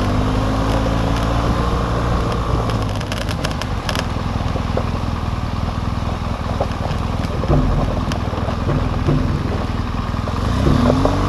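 Adventure motorcycle engine running at low speed on a gravel track, its note swelling up and falling back near the end. Scattered clicks and clatter come from loose gravel under the tyres.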